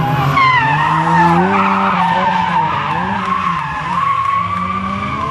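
Ford Sierra rally car's engine revving hard at speed through a bend and pulling away, with tyre squeal in the first second or so. The engine pitch drops and climbs again about three seconds in.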